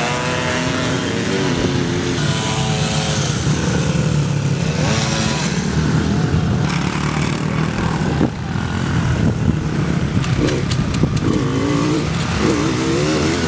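Small motocross dirt bike engines running and revving on a dirt track, their pitch repeatedly rising and falling.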